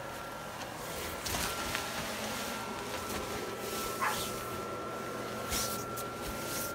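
Blower fan of an airblown inflatable spider running with a steady hum and a faint steady whine. A few brief handling noises from the phone sound over it.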